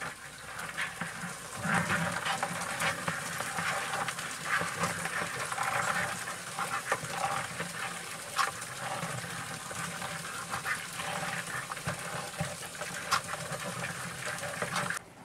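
Live land crabs scrabbling in a plastic bucket with a little water: a steady rustling hiss with many small clicks of legs and claws against the plastic and each other.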